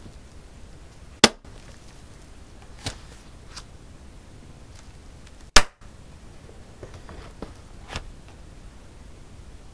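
Stiff decorated pages of a ring-binder journal being turned, each landing with a sharp slap: two loud ones about four seconds apart, with softer taps and rustles of paper and binder rings between them.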